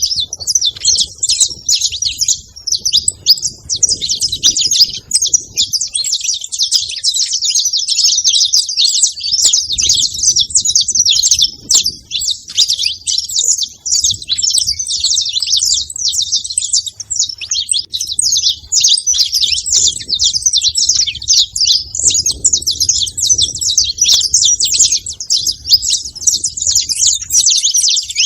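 Saffron finch chirping and singing in a rapid, unbroken stream of high, quick notes.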